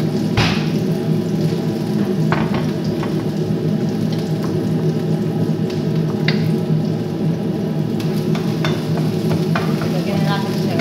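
Chopped onion, garlic and green pepper frying in a pot, over a steady low hum, with occasional sharp clicks of utensils against the cookware. Near the end a wooden spoon stirs the pot.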